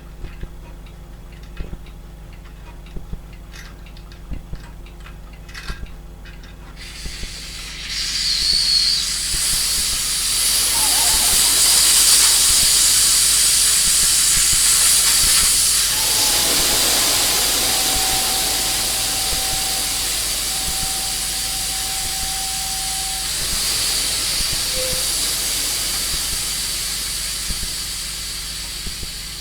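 Compressed air hissing out of an airbrush compressor's air tank through its release valve, letting off the residual pressure. A few faint clicks come first; the hiss starts about seven seconds in, rises quickly and then slowly fades as the tank empties, with a faint whistle partway through.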